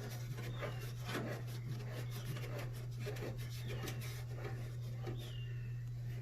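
Bandsaw's blade-tension handwheel being turned by hand to slacken the blade: a run of small scraping rubs and clicks with a few faint squeaks, over a steady low hum.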